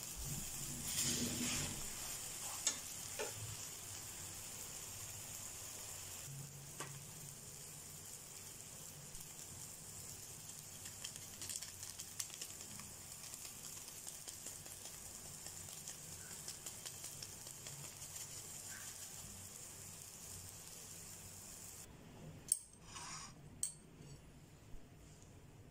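Spinach omelette sizzling steadily in a non-stick frying pan, with a metal spatula scraping and tapping against the pan in the first few seconds. Near the end the sizzle stops and a few sharp clinks of a plate follow.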